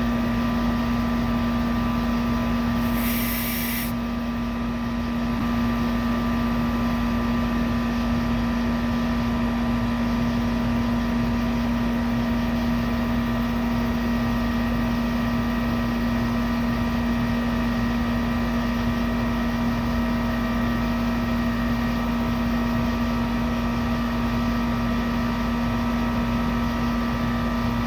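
Central air conditioner running with a steady hum and a few higher whining tones, with a short hiss about three seconds in.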